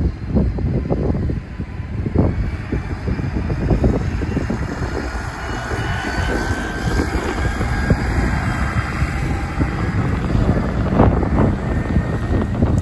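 A bus engine running as the bus drives past, a low rumble with a faint whine that rises slightly in pitch through the middle.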